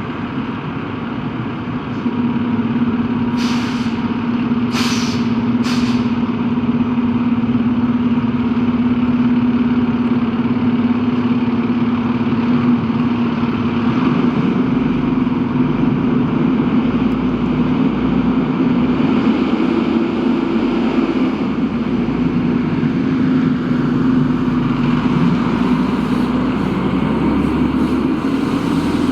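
Sutphen Monarch aerial platform fire truck's diesel engine running with a steady drone. There are three short air-brake hisses a few seconds in, and a deeper rumble joins about halfway through.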